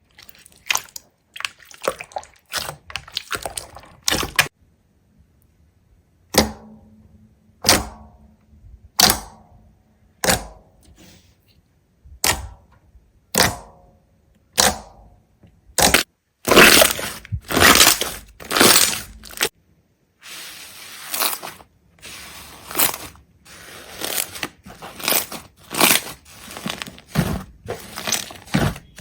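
Crisp cracking and crunching as something brittle is cut or crushed. It starts as single sharp snaps about a second apart, some with a short ringing tail, then turns to a faster run of dense crackling crunches about halfway through.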